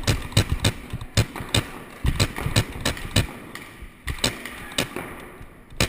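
Paintball markers firing, sharp pops several a second in quick strings with short pauses between them.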